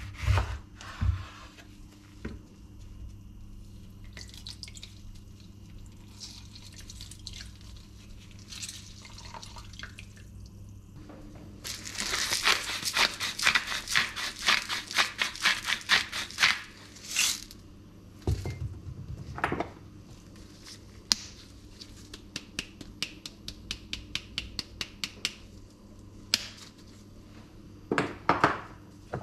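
Kitchen prep sounds: a knife cuts through a lemon on a wooden chopping board near the start. Then a salt grinder is twisted over a metal bowl, giving a long run of rapid gritty clicks, followed later by shorter runs of clicks and a few knocks.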